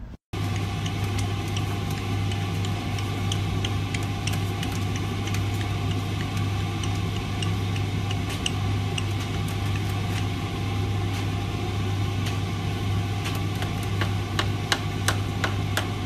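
Front-loading washing machine running: a steady low motor hum with scattered light clicks and ticks, which come thicker and louder in the last couple of seconds.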